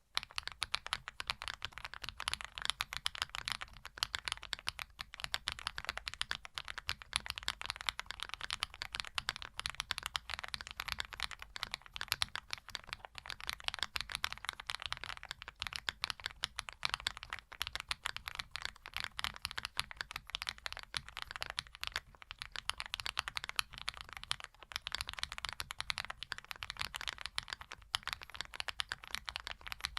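Fast, continuous typing on a custom mechanical keyboard with PBT Cherry-profile keycaps and plate-mounted stabilizers: a dense run of crisp key clicks over a deeper thock, starting abruptly at the outset.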